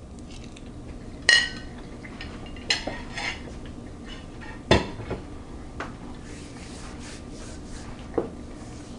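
Metal cutlery clinking and scraping a handful of times as a bite of roast chicken is picked up, over a faint steady hum.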